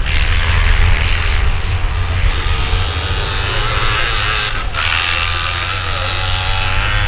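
Sidecar motocross outfit's engine running hard under throttle as it accelerates up the dirt track, its pitch rising and falling, with a brief throttle lift about four and a half seconds in.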